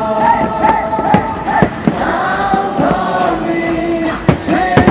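Choir music with sustained sung notes, broken by four sharp aerial firework bangs: two about a second in, half a second apart, and two more near the end.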